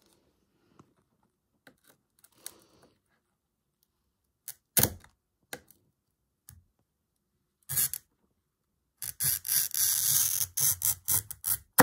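Glass cutter's wheel scoring a sheet of glass along a metal ruler: a continuous scratchy hiss for about three seconds near the end. Before it come scattered light clicks and taps as the ruler and cutter are set on the glass.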